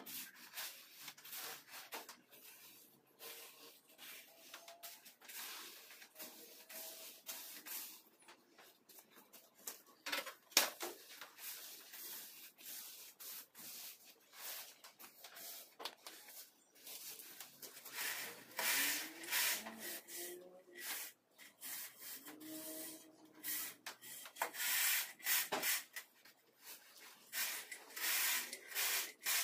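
Steel trowel and straightedge scraping over wet sand-and-cement floor screed, in irregular rasping strokes that grow denser and louder in the last third. One sharp knock about a third of the way in.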